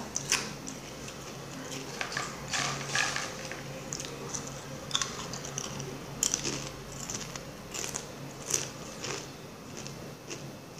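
A person chewing a mouthful of food, with irregular crunches as it is bitten.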